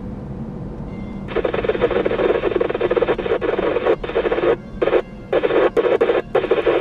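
A Retevis RT98 UHF radio scanning the PMR446 channels plays a burst of loud hiss and crackle through the car speakers, held to a narrow radio band. It cuts in about a second in, then breaks up into several short chunks with brief gaps between them in the second half.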